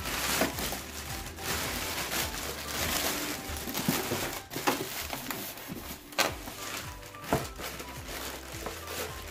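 Clear plastic bag crinkling and rustling in irregular bursts as it is pulled off a sewing machine, over background music.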